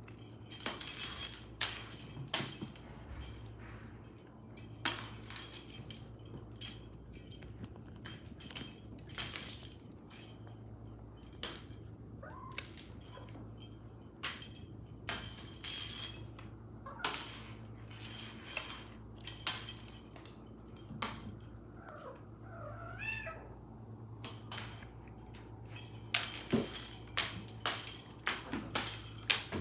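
A domestic cat moving about, with many short clicks and knocks throughout over a low steady hum. There is one brief wavering cat call about 22 seconds in.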